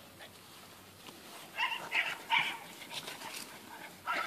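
Puppies barking while play-fighting: three short, high yips in quick succession about a second and a half in, and another near the end.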